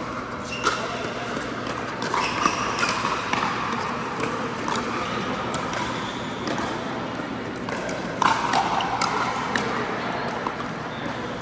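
Pickleball rally on an indoor court: paddles popping against the plastic ball and the ball bouncing on the floor, in sharp hits at irregular intervals of roughly half a second to a second.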